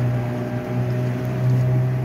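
The motor driving a river raft, running at a steady, even hum without change in pitch.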